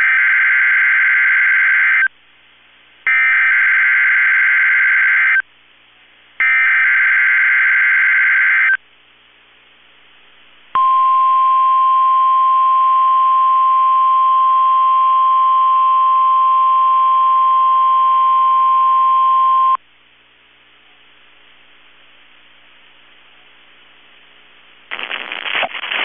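NOAA Weather Radio Emergency Alert System test signal. It starts with three harsh, screeching digital data bursts of about two seconds each, a second apart: the SAME header sent three times. A steady 1050 Hz warning alarm tone follows and holds for about nine seconds, then stops suddenly and leaves faint hiss.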